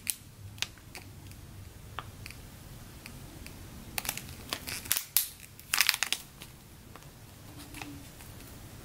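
Clear plastic packaging bag around a squishy toy crinkling and crackling as it is handled, in scattered crackles that are busiest about four and six seconds in.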